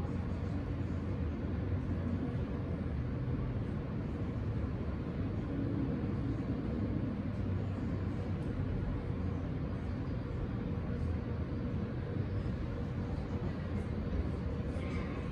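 Steady low rumble of an underground subway station with no train in the station, with a faint steady hum.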